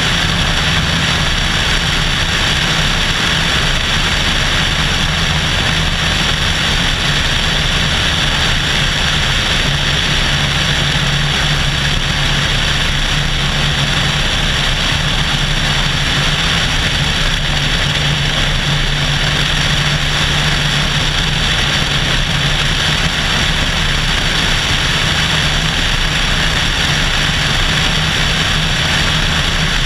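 Cessna 172SP's four-cylinder Lycoming engine and propeller running at a steady drone in flight, heard from outside the airframe under a steady rush of air across the camera.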